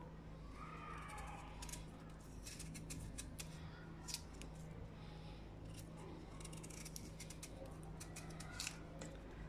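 Kitchen knife slicing and scraping the tough, fibrous skin off a raw taro corm: a faint, irregular run of crisp cuts and scrapes. A steady low hum runs underneath.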